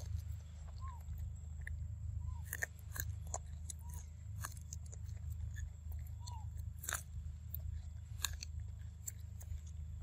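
Macaque chewing and biting kernels off a corn cob close to the microphone, with irregular crunchy clicks.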